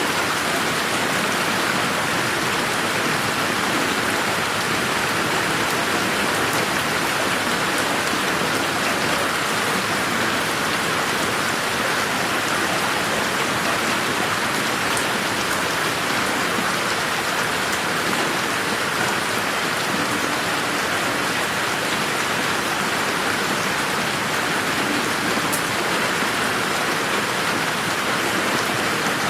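Steady rain falling in a garden, an even rush of drops with a few sharper drip ticks.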